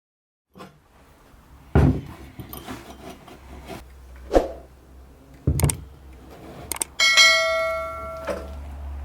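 Hard objects knocking and clinking several times, then a sharp strike on metal about seven seconds in that rings like a small bell and fades over about a second and a half.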